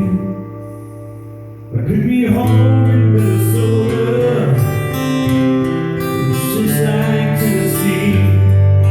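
Live rock/country song with guitar and a singing voice. A held chord rings out and fades, then the band comes back in loudly about two seconds in.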